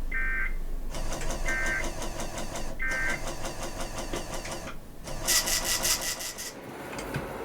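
Emergency Alert System end-of-message data tones from a weather radio broadcast: three short warbling bursts of two-pitch digital data, about a second and a half apart. From about a second in, a rapid, evenly repeating buzzing noise runs in two stretches, the second one louder.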